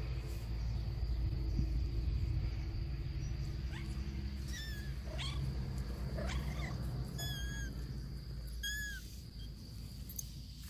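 Kitten mewing: about six short, high mews, several rising in pitch, starting about four seconds in, over a steady low rumble.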